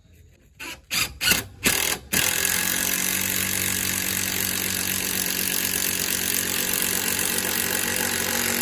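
Cordless drill driving a long Timberlok structural screw down through a wooden rafter tail. It gives a few short trigger bursts, then runs steadily under load from about two seconds in.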